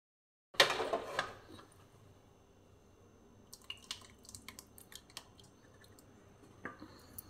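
Thick tomato kalaunji gravy poured from a kadhai into a glass bowl. A loud clatter of pan on bowl comes about half a second in. Then come soft drips and small clinks.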